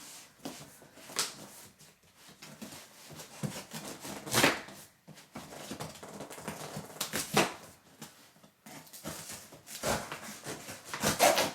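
Large cardboard shipping box being handled and cut open with a knife: irregular scraping and rustling of cardboard and tape, with three louder rasping strokes.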